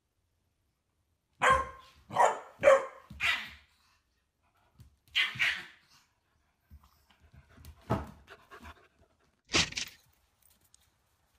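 A small puppy barking in sharp yaps: four in quick succession, then a few more spaced out.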